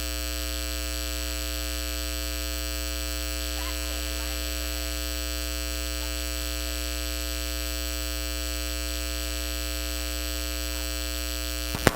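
Steady electrical mains hum, a buzz made of many steady tones, on a faulty audio feed that has lost the speaker's voice.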